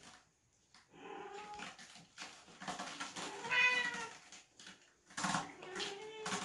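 Cats meowing: a run of short wavering meows begins about a second in, the loudest around the middle and another near the end, amid light scuffling and knocks as kittens scramble on a sisal scratching post.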